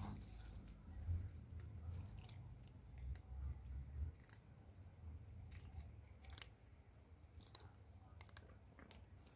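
Cats crunching dry kibble: faint, irregular crisp clicks of chewing, over a low rumble that fades about four seconds in.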